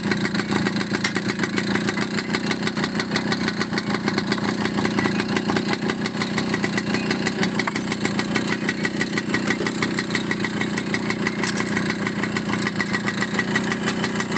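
Motorcycle engine idling steadily with a fast, even beat.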